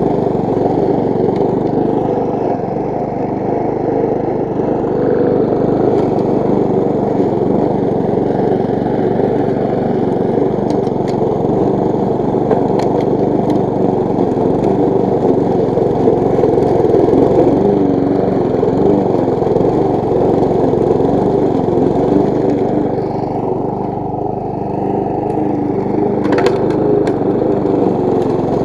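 Walk-behind petrol lawn mower with a Briggs & Stratton engine running steadily under load as it cuts grass, with a few faint ticks.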